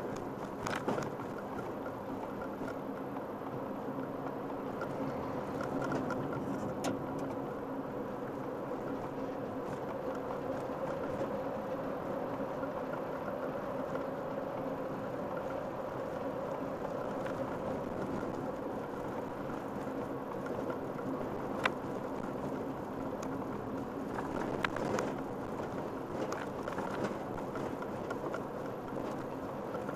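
Steady engine hum and road noise inside a car's cabin while driving at speed on a highway, with a few brief sharp clicks.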